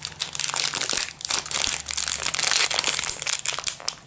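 Plastic flow-wrap of a packaged sponge cake crinkling and crackling without a break as it is handled, flattened and turned over in the hand.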